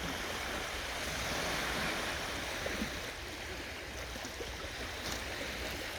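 Baltic Sea waves washing onto the shore, a steady rush of surf that swells about two seconds in.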